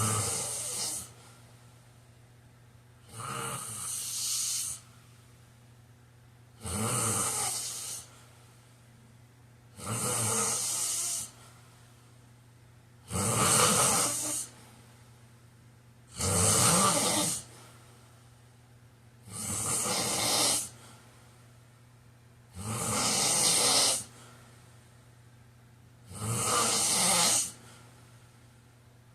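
A man snoring in his sleep: nine snores at an even pace, one about every three seconds, each lasting about a second, over a faint steady low hum.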